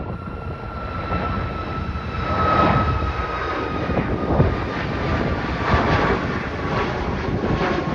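Jet airliner engines: a steady high whine that slowly falls in pitch, over a gusty low rumble.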